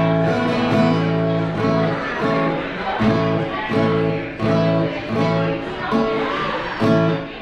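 Music: a strummed acoustic guitar playing chords in a steady rhythm.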